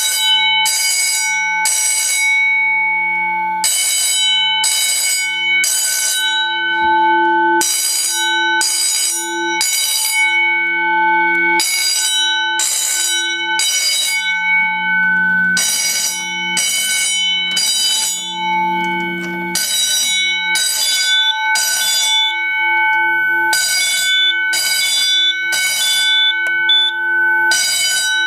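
Edwards 439D 10-inch fire alarm bell ringing loudly in the temporal code-3 evacuation pattern: three rings, a pause, then the cycle again about every four seconds.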